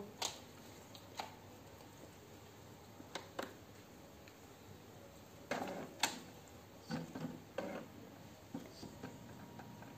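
Epson L3210 ink-tank printer just switched on, its mechanism starting up: scattered mechanical clicks and short knocks at irregular intervals.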